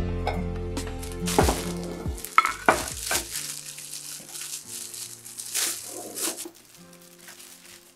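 Plastic bread bag crinkling and rustling as it is handled, over background music.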